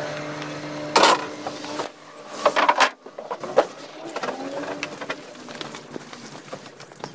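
Footsteps walking through a temporary tent walkway, over wooden boards and up concrete steps: irregular knocks and scuffs, with two louder thumps about a second and two and a half seconds in. A steady hum is heard for about the first second.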